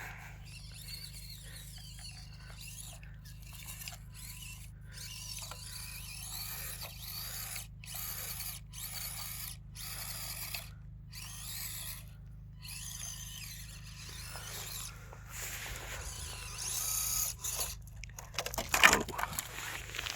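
Axial SCX24 micro crawler's small electric motor and gears whining in short bursts as the throttle is worked on and off, the pitch rising and falling with speed. A few louder knocks come near the end.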